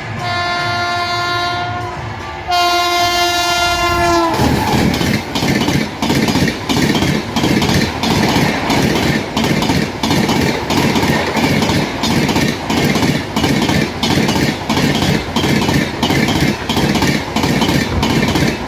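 WAP7 electric locomotive horn sounding in two long blasts, the second dropping in pitch as the locomotive passes at speed. Then the passenger coaches pound over the rail joints at about 130 km/h, a loud, fast, regular gunshot-like clatter of about two sharp bangs a second.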